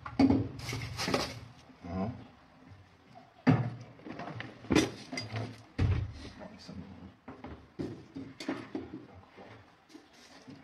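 Kitchen clatter: a run of separate knocks and clinks from bottles, jars and pots being handled around a wok on a gas stove.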